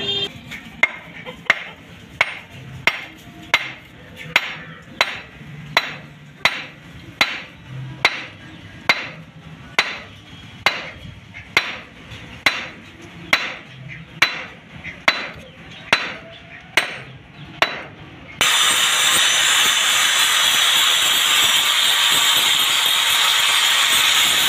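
Evenly spaced knocks, about one and a half a second, as the hoe's head is knocked onto its wooden handle to seat it. About eighteen seconds in, an angle grinder starts suddenly and runs steadily, grinding the hoe's steel blade.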